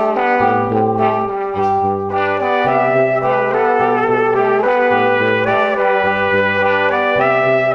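Background music led by brass instruments over a bouncing bass line.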